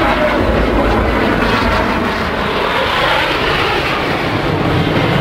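Jet aircraft flying past, a loud, steady rushing engine noise.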